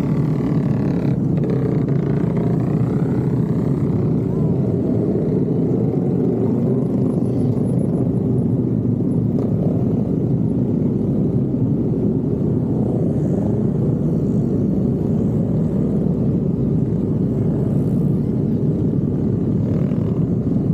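Many motorcycle engines running together in a slow-moving column, forming a steady dense drone, with engine revs rising and falling in the first few seconds.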